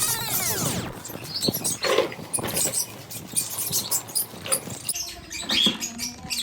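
Pet parrots in an aviary giving short chirps amid scratchy clicks and rustling; a sweeping pitched sound fades out in the first second.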